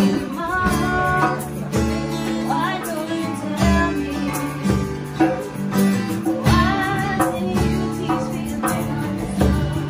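Two acoustic guitars strumming chords, with a hand drum tapped along and women singing the melody.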